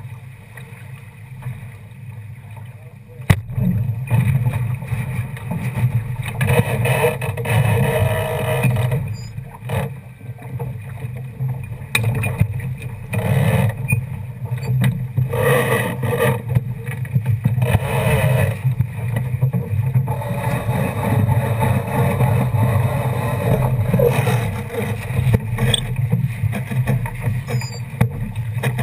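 Water rushing and splashing along the hull of a small sailboat under sail, with a steady low rumble of wind on the boat-mounted camera and several louder surges of spray. A sharp knock sounds about three seconds in.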